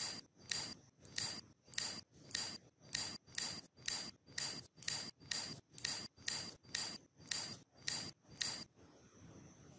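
Sharp clicks at a very even pace of just under two a second, each with a brief high ring; they stop a little over eight and a half seconds in.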